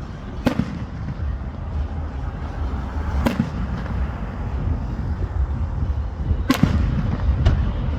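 Fireworks bursting: three sharp bangs about three seconds apart with a softer one near the end, over a steady low rumble of further explosions.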